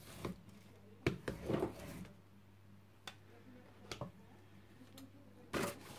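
Light handling noises of craft tools on a wooden table: a rubber brayer roller picked up and set down, with a short scraping rustle in the first two seconds, a few scattered soft knocks, and a louder knock near the end.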